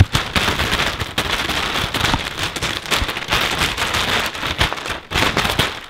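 Thin plastic bags crinkling and rustling as they are grabbed and pulled by hand, a dense run of quick crackles.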